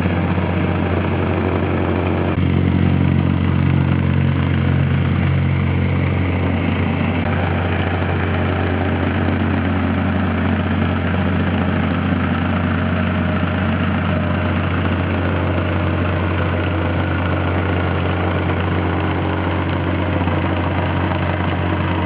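Masterpac plate compactor's small engine running steadily, a constant low hum with no let-up.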